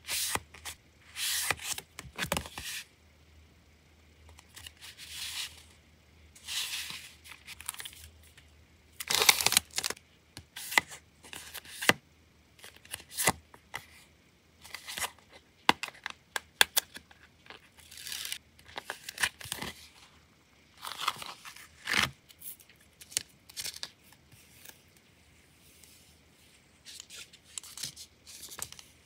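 Paper handling: sheets of a memo pad being flipped and a stack of printed paper cards being shuffled and fanned, giving short rustling, crinkling and snapping bursts with quiet pauses between. Near the end, a roll of clear printed tape is pulled and unrolled.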